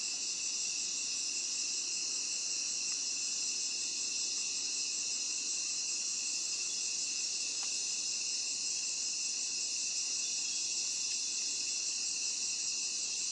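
Dense, steady chorus of night insects chirping, high-pitched and unbroken.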